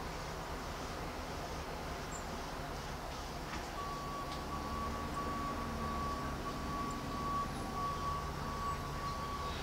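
Low, steady rumble of distant engines, with a thin steady whine joining in about four seconds in.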